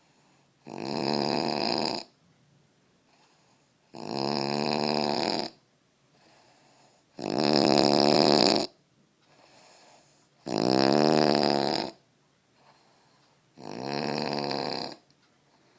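A man snoring in a steady rhythm: five loud snores about three seconds apart, each lasting over a second, with quiet gaps between.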